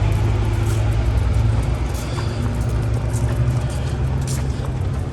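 A steady low rumble under a haze of outdoor noise, with a few faint clicks.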